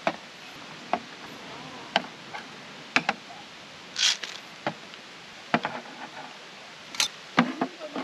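A series of separate sharp clicks and knocks, roughly one a second, with a short hiss about four seconds in, over a steady faint hiss.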